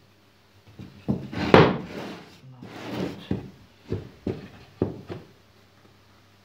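Plywood parts knocking together and thumping on the workbench as slotted pieces are fitted by hand: a string of wooden knocks with some scraping between them, the loudest about one and a half seconds in.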